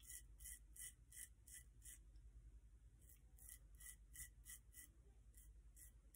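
1960 Gillette Flare Tip double-edge safety razor with a Super Iridium blade scraping a day's stubble off a lathered cheek. It makes a faint, rhythmic rasp of short strokes, about three a second, with a pause about two seconds in.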